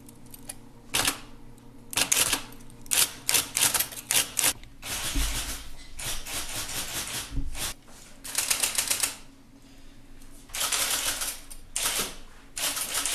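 Typewriter being typed on: irregular runs of sharp key strikes, with two longer stretches of dense clattering about five and ten seconds in.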